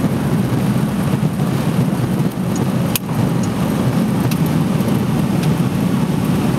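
De Havilland Beaver floatplane's engine and propeller running steadily, heard from inside the cabin, as the plane comes in low over the water to land. A brief click about halfway through.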